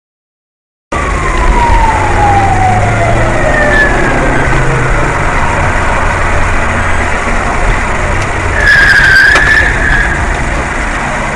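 Dashcam recording of traffic and engine noise from a moving car, starting abruptly about a second in. A falling whine runs over the first few seconds, and a short loud high tone sounds for about a second around nine seconds in.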